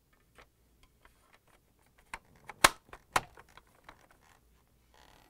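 Small plastic clicks and taps as the filter head is fitted into a Samsung refrigerator's plastic water filter housing, with two sharper clicks a little past halfway, about half a second apart.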